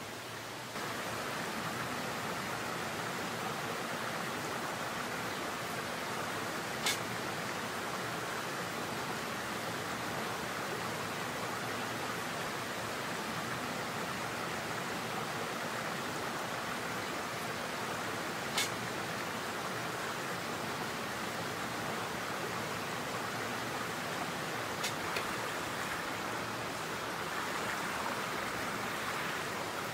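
Mountain stream rushing steadily over rocks, with four sharp clicks spread through it, the last two close together.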